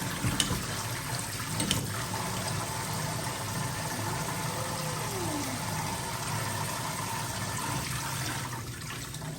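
Handheld shower spray running steadily, water splashing onto a puppy being bathed, with two light knocks in the first two seconds.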